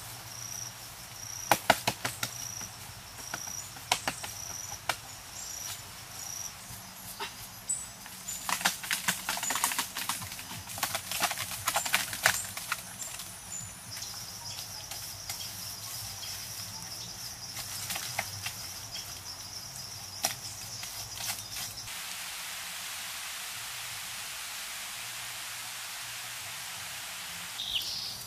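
Irregular knocks and scrapes of a wooden stick digging into packed soil, dense in the first half, with an insect chirping in a high pulsing then steady tone in the background. The knocks stop a little past halfway, leaving a steady hiss, and a bird calls briefly near the end.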